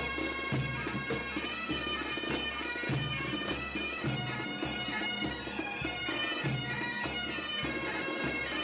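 Pipe band playing a tune on bagpipes over their steady drones, with a drum beating regularly underneath about twice a second.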